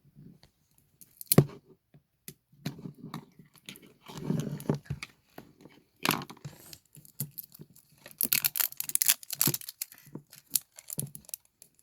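Plastic wrapping being torn and crinkled off a small slime container: irregular rustling, crackling and sharp snaps, thickest about eight to nine and a half seconds in.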